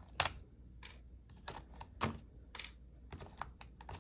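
Irregular sharp clicks and crackles, about a dozen, as the thin wrapping sealed inside a plastic heart-shaped blind-box capsule is poked and torn open with fingers and scissors.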